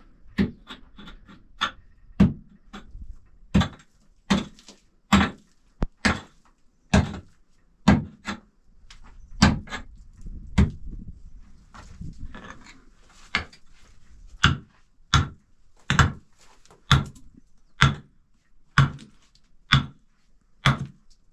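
A long series of heavy blows, about one a second in a steady rhythm, each a sharp knock with a dull low thud.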